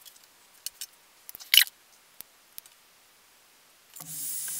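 Small clicks and taps of wires and hand tools being handled on a workbench, with one sharper click about a second and a half in. About four seconds in, a handheld electric heat gun switches on: a steady rush of hot air over the low hum of its motor, used for shrinking heat-shrink tubing over wire joints.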